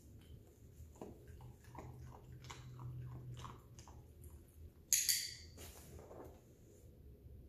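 A dog chewing and crunching treats taken from a hand, heard as a run of small clicks. About five seconds in comes a brief sharp rattle, the loudest sound.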